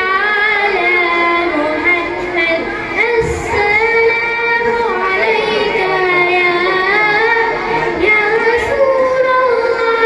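A boy singing an Arabic naat into a microphone: a single voice holding long notes that glide up and down.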